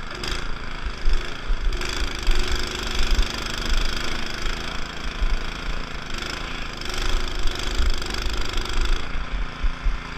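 Gasoline snowblower engine running steadily.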